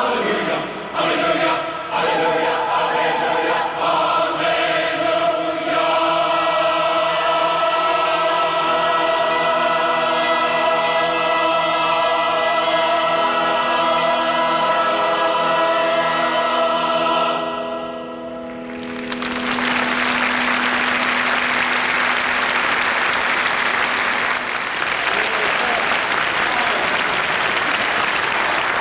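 A choir sings and holds a long final chord that ends about two-thirds of the way in, then the audience breaks into sustained applause.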